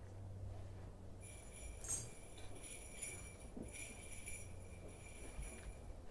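Faint, steady high-pitched ringing made of several tones at once. It starts about a second in and stops shortly before the end, with a short click about two seconds in.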